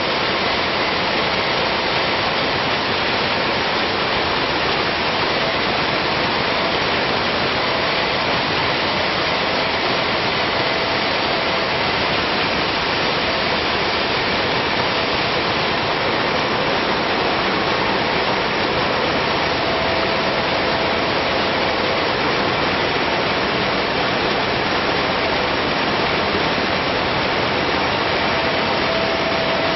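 Pop-up facial tissue production line machinery running: a loud, steady, dense mechanical noise with faint steady tones in it.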